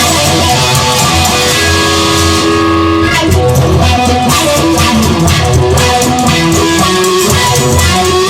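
Instrumental rock music with strummed electric guitar and bass guitar, no vocals.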